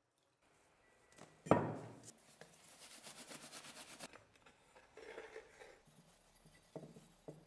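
A heavy thump about one and a half seconds in, then a cloth towel rubbing briskly over a wet metal cleaver blade for about two seconds to dry it. Lighter rubbing and a few soft knocks follow.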